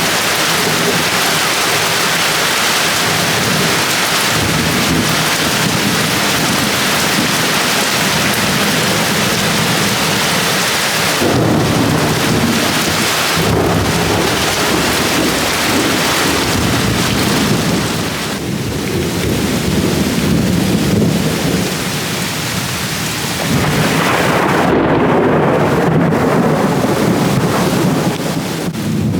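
Heavy rain falling steadily in a thunderstorm, with thunder rumbling low underneath; the rumble swells about eleven seconds in and again about twenty-four seconds in.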